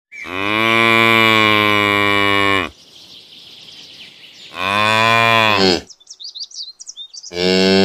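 Cow mooing: three long, drawn-out moos, the first the longest and the last starting near the end. Short high bird chirps come between the second and third moo.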